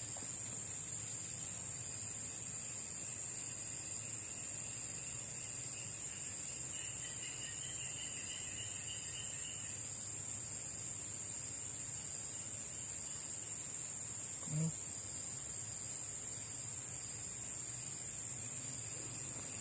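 Steady, high-pitched insect drone, with a fainter pulsing insect call joining in for a few seconds mid-way.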